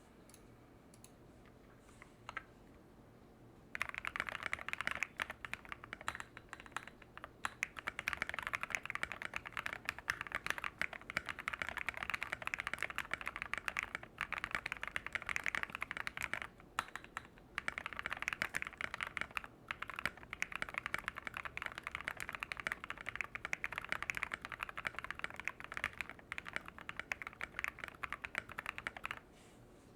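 Fast typing on a GMMK Pro mechanical keyboard with lubed and filmed NovelKey Cream linear switches and SA profile keycaps: dense clacking keystrokes that begin about four seconds in and stop shortly before the end, with a few brief pauses.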